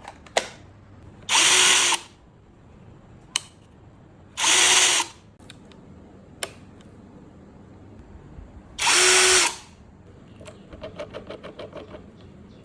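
Cordless impact drill run in three short bursts of under a second each, spaced a few seconds apart, with a few sharp clicks between them and a quick run of clicks near the end.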